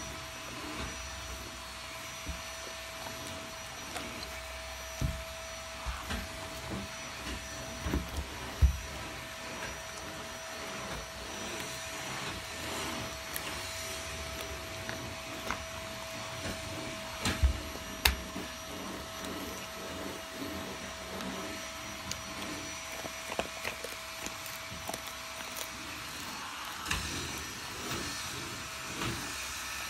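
A Great Pyrenees gnawing and crunching a chew treat: scattered clicks and cracks, the loudest a few sharp cracks about a third of the way in and just past halfway. A vacuum cleaner runs steadily in the background throughout.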